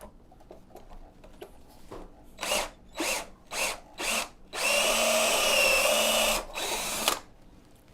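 Power drill triggered in four short bursts, then run steadily for about two seconds with a whine, and briefly once more, drilling out a leftover rubber flap inside a water heater.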